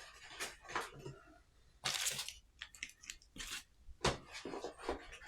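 Irregular rustling and crinkling of plastic packaging being handled, in short bursts, the loudest about two seconds in and again about four seconds in.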